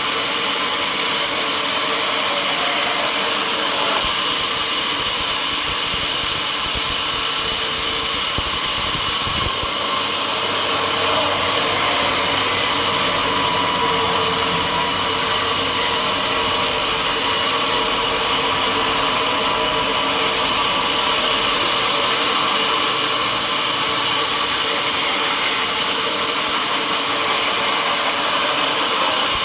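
Sawmill saw running steadily through wood, a loud continuous machine noise with a deeper hum joining about ten seconds in.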